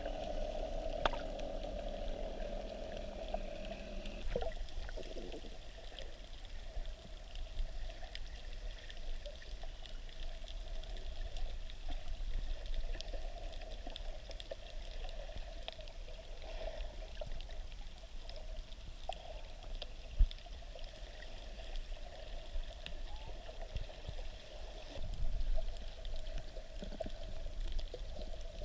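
Underwater ambience: a steady, muffled wash of water with scattered small clicks, and one sharper click about twenty seconds in.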